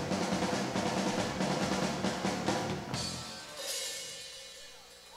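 Live rock band with a loud drum kit playing the last bars of a song, cutting off about three seconds in, the sound then dying away.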